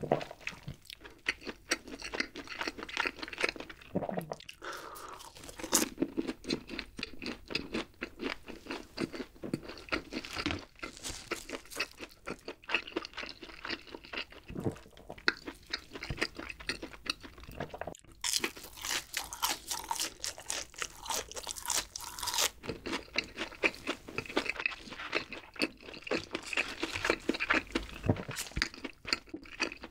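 Close-miked bites and chewing of crispy fried McDonald's chicken nuggets and breaded cheese sticks, a steady run of crunches and crackles with wet chewing between bites. About two-thirds of the way in comes a louder stretch of crunching lasting a few seconds.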